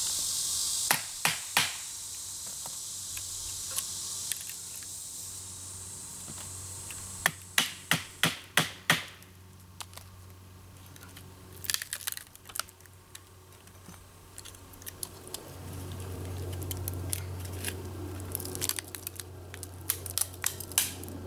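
A wedge being knocked into a length of green branch to split it: three sharp knocks about a second in, then a quick run of six knocks a few seconds later. Near the end the wood cracks and tears in irregular crackles as the split opens and the halves are worked apart.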